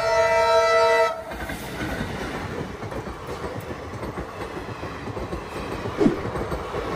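Locomotive horn of an Indian Railways passenger train sounding a loud multi-tone chord that cuts off about a second in, followed by the steady rumble and clatter of the coaches running past. A brief falling tone comes about six seconds in.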